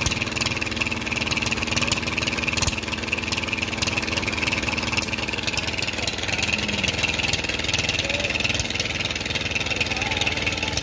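Engine-driven flywheel chaff cutter running steadily, its stationary engine holding an even speed while it chops green fodder.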